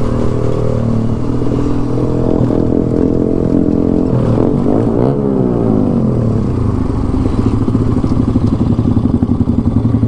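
Motorcycle engine revving up and down through the first half, its pitch climbing and falling, then settling into a steady low run with a choppy exhaust pulse.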